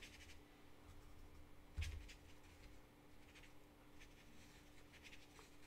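A squirrel-hair watercolour brush faintly brushing across cold-pressed watercolour paper in a few soft strokes while softening wet edges, with a small knock about two seconds in, over a low steady hum.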